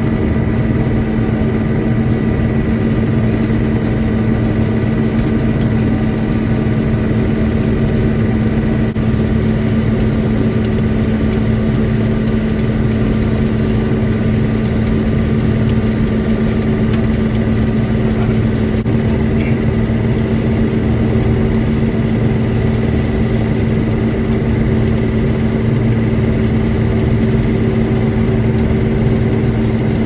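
Combine harvester running steadily as it harvests corn, heard from inside the cab: a constant, even drone with steady humming tones from the engine and threshing machinery.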